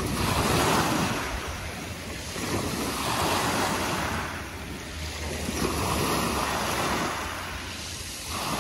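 Sea waves washing onto the shore, the rush of surf swelling and falling back about three times.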